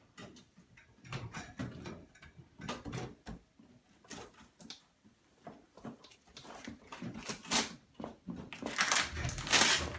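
Irregular knocks, clatters and rustling as capuchin monkeys handle a toy tool bench and its pieces, with two louder spells of rattling near the end.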